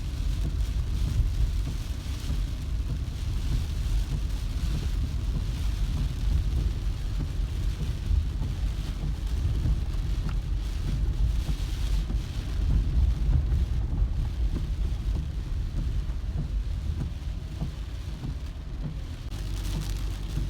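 Rain falling on a moving car, over the steady low rumble of the car driving. The hiss of the rain rises and falls now and then.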